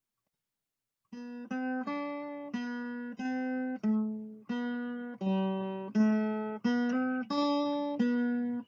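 Music: a plucked guitar playing a single-note melody, one note at a time, each ringing and fading, starting about a second in.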